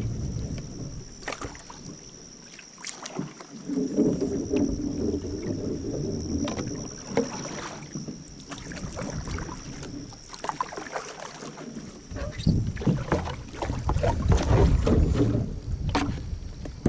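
Paddling a kevlar canoe: irregular paddle strokes splashing in the water, with a few sharp knocks, over a low rumble of wind on the microphone that swells and fades. A thin, steady high tone runs underneath.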